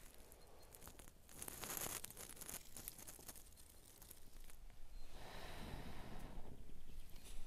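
Faint rustling, crinkling and scraping handling noises, with a louder stretch about a second and a half in and another around five seconds in.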